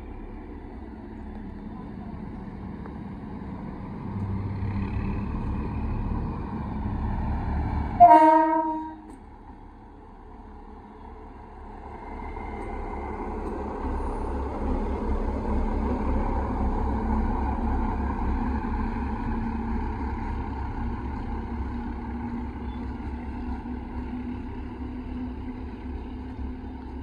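Indian Railways OHE inspection car, a diesel self-propelled rail car, running slowly past with a steady engine rumble. A single short horn blast about eight seconds in is the loudest sound. The rumble grows louder as the car passes close, then eases off slightly.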